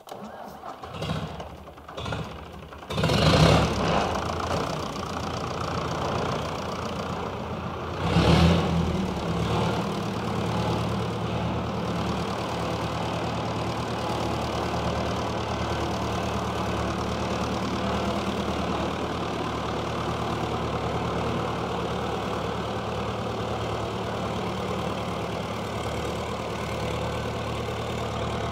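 Massey Ferguson tractor's Perkins diesel engine being started: a few short noises, a loud burst as it catches about three seconds in, a second loud rise around eight seconds, then a steady idle.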